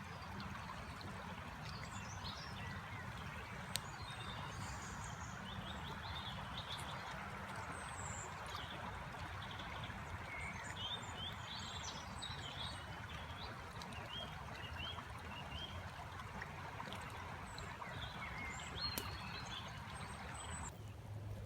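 River flowing steadily, with faint short high chirps scattered over it; the water sound cuts off suddenly near the end.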